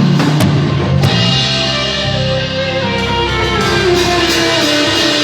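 Live band playing loud rock-style music: electric guitar over a drum kit, with drum hits in the first second and a descending guitar line in the second half.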